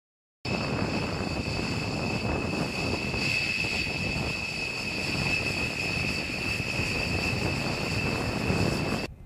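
B-1B Lancer's General Electric F101 turbofan jet engines running with a steady high whine over a broad rumble. The sound starts about half a second in and cuts off abruptly near the end.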